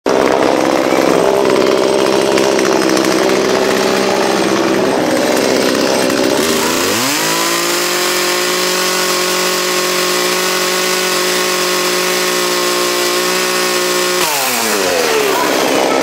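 Small two-stroke gas chainsaw labouring at lower, uneven revs under load for the first six seconds or so, as when cutting into wood. It then revs up in a rising whine to a steady high pitch, holds there for about seven seconds, and winds back down near the end.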